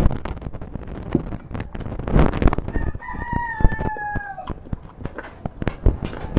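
A rooster crows once, about three seconds in: one long call of about a second and a half that falls slightly in pitch. Short knocks and clicks run throughout.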